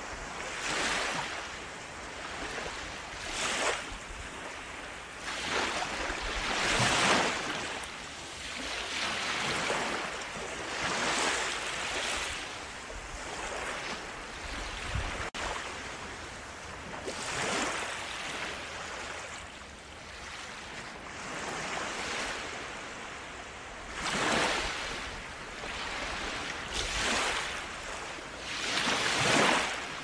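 Small waves breaking and washing up a sandy beach, a fresh swell of surf every two to three seconds.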